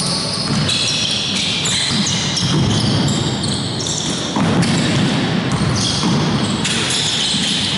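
Basketball being played on a hardwood gym floor: sneakers squeaking repeatedly, with footsteps and the ball bouncing.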